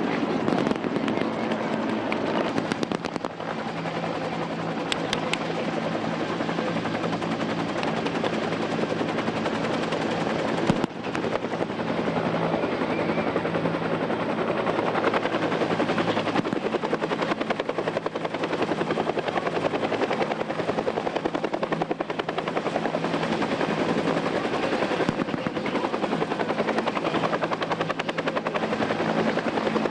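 Military helicopter flying over, its rotor and turbine giving a loud, steady drone. A few sharp cracks of blank gunfire sound in the first few seconds, and a single sharp crack comes about eleven seconds in.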